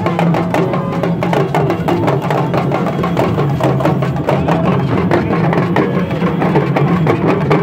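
Live Yoruba hand-drumming: many fast, sharp drum strokes in a steady, busy rhythm.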